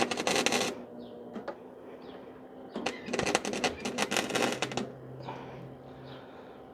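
Electric arc welder crackling in two short welding runs, a brief one at the start and a longer one of about two seconds, as a steel exhaust hanger is welded to a muffler.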